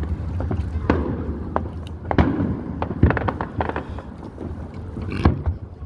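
Aerial fireworks shells bursting in an uneven string of sharp bangs, several close together about three seconds in, with crackling haze between them.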